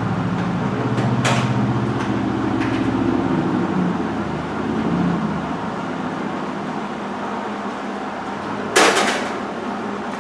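Hobart 140 MIG welder with the gun trigger held to purge shielding gas: the wire-feed motor runs with a low hum for about five seconds, with a couple of light clicks, then a short loud hiss near the end.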